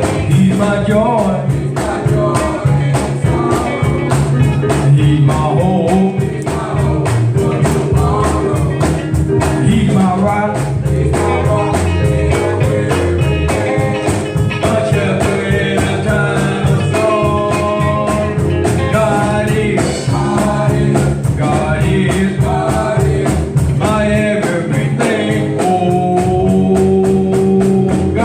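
Gospel song: a singer's melody over a band, with drums keeping a steady beat and a bass line underneath.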